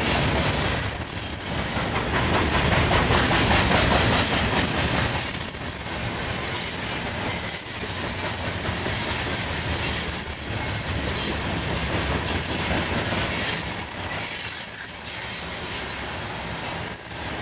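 Freight train cars rolling past close by: a steady rumble and clatter of steel wheels on rail. A thin, high-pitched wheel squeal sounds for a few seconds near the end.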